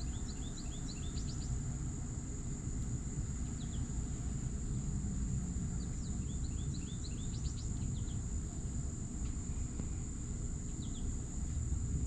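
Outdoor ambience: a steady high-pitched insect drone, with a bird calling in quick runs of short downward chirps, once near the start and again about halfway through, over a low steady rumble.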